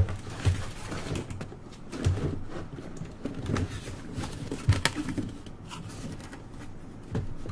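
Scattered soft knocks and light clicks, a handful over several seconds, over a faint low hum.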